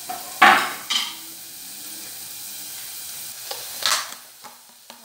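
Chopped onion, garlic and parsley stems sizzling steadily in hot oil in a saucepan, with a few short, loud scraping strokes, the loudest about half a second in and another near four seconds.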